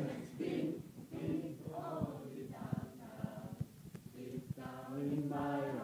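A small group of adults singing a song together without instruments, in phrases with short breaks between them. A few light taps sound under the singing in the middle.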